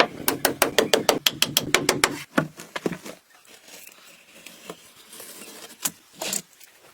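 A fast run of sharp knocks, like hammering on wood, at about eight to ten a second for the first two seconds, then a few scattered, quieter knocks with two louder ones near the end.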